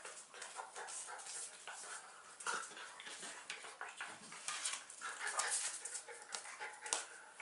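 A Cairn terrier and an Irish wolfhound puppy play-wrestling: scuffling of paws and bodies, with short, high dog whines in among it.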